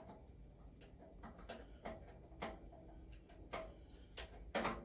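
Light, irregular metallic clicks and taps of a hand tool working on the connecting rod's big end inside the crankcase of an International Harvester Type M 3 hp engine, with a louder tap near the end.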